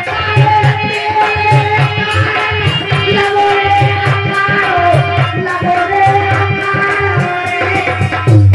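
Live Indian folk devotional music: a harmonium holds long notes over a fast, steady hand-drum rhythm.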